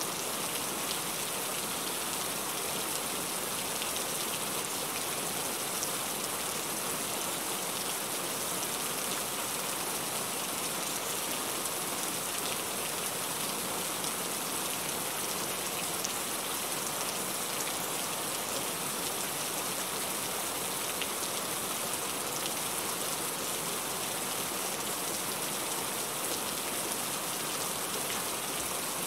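Heavy rain falling steadily, a dense even hiss of drops with fine pattering on a surface.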